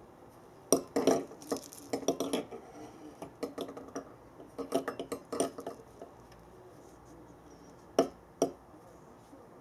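Wire-cage ball cat toy with a plush mouse inside, clinking and rattling as it is swung and batted by a cat's paw: quick clusters of light clicks through the first half, then two sharp single clicks near the end.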